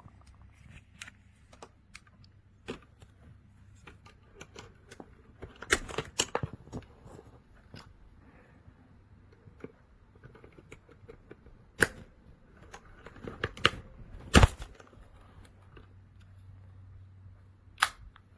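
Irregular sharp plastic-and-metal clicks and clacks, with a few louder snaps, from a keycap and switch puller working the keys of a mechanical keyboard.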